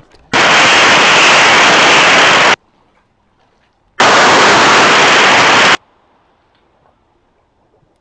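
Two bursts of loud static hiss. Each lasts about two seconds and switches on and off abruptly, with a short quiet gap between them.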